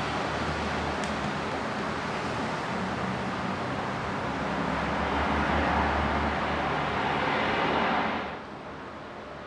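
Rushing noise of a landing airliner mixed with strong gusty wind, swelling and then dropping away sharply about eight seconds in.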